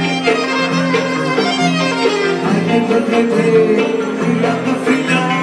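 Live band playing traditional Greek folk dance music: a held melody line over steady accompaniment, with a tambourine's jingles.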